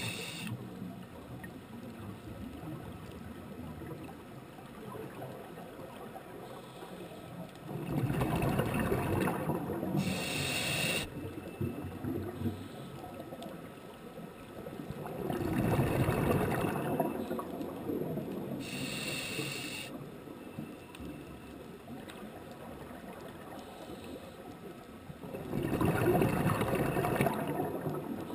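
Scuba diver breathing through a regulator underwater: three long rushes of exhaled bubbles, each followed by a short hissing inhalation, about one breath every nine seconds.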